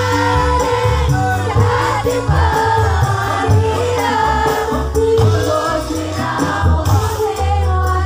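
A live band playing while a woman sings a Javanese-language pop song into a microphone, over a strong steady bass line, with electric guitars and drums.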